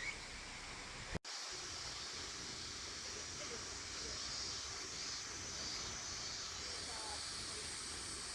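Steady outdoor background hiss with no distinct events, broken by a sudden momentary dropout about a second in.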